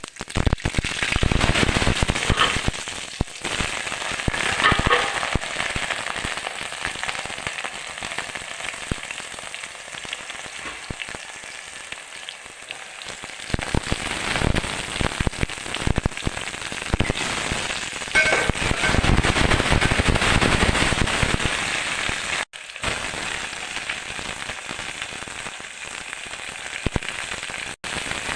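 Hot oil sizzling and crackling in a pan with a dense spatter of pops, the sound of a tadka tempering frying, growing louder twice along the way. The sound breaks off abruptly twice for an instant.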